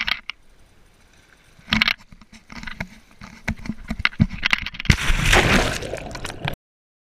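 A person jumping from a rock into the sea with the camera: scattered knocks and scrapes of the camera being handled, then about five seconds in a loud splash and rushing water and bubbles as the camera goes under, cut off suddenly near the end.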